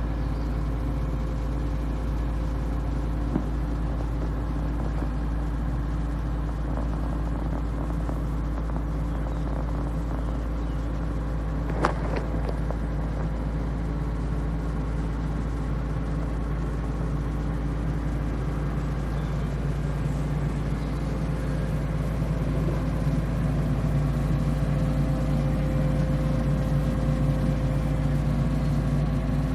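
Atlas 190 LC tracked excavator's diesel engine running steadily at idle, with a sharp knock about twelve seconds in; it grows a little louder in the last third.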